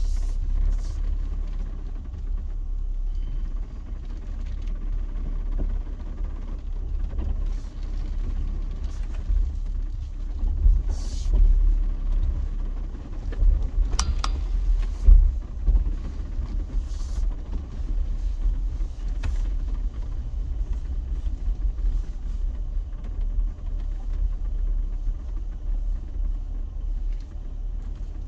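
Jeep driving slowly along a rough four-wheel-drive track: a steady low rumble from the engine and running gear, with a few sharp knocks around the middle.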